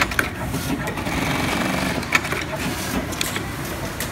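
Industrial sewing machines running, a steady mechanical rattle with irregular sharp clicks.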